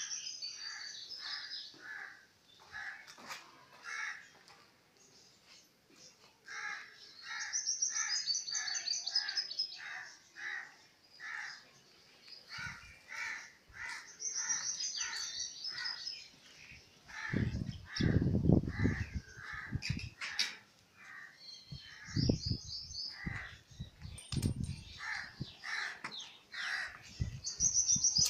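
Birds calling outdoors: runs of evenly repeated calls, several a second and a few seconds long each, mixed with bursts of higher chirping. From about halfway through, irregular low rumbling bursts come in as well.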